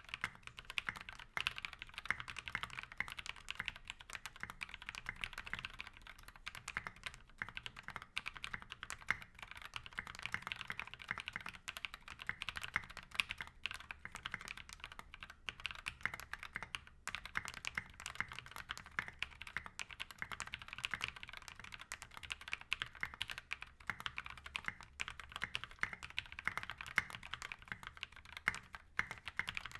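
Steady, fast typing on a custom 65% mechanical keyboard: lubed NovelKeys Cream linear switches on a brass plate with SA-profile keycaps. Its keystrokes are dense, quick clacks with no pauses.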